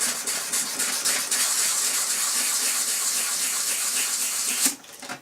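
320-grit emery cloth rubbed rapidly back and forth over a piece of brass to clean it for soldering, a steady scratchy hiss with quick even strokes that stops abruptly near the end.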